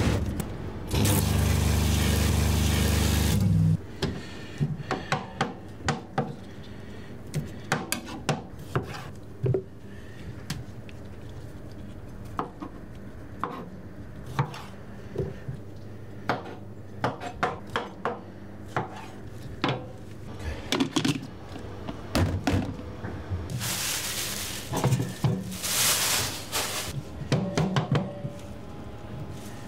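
Irregular knocks, clicks and clatter of kitchen work, utensils and wooden or metal items being handled. A loud steady noise with a low hum runs for the first few seconds, and two loud rushing noises come about two-thirds through.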